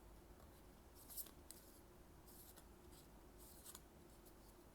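Faint rustling of trading cards being handled, three brief swishes about a second apart.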